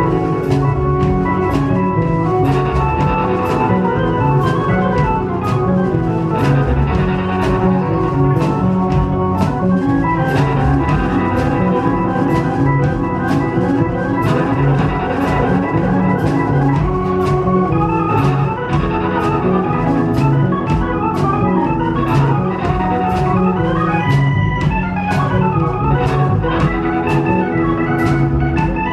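Live rock band playing an instrumental break with organ to the fore, over bass, drums and a steady cymbal beat.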